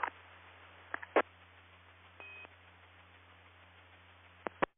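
2-meter amateur radio repeater's courtesy beep, one short high tone about two seconds in, after a station unkeys. Sharp squelch clicks about a second in and again near the end, over faint receiver hiss and hum, before the audio drops to dead silence.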